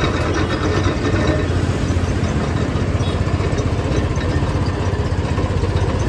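Motor-driven sugarcane juice crusher running, its steel rollers, gears and belt-driven flywheels turning with a steady low mechanical rumble that starts suddenly.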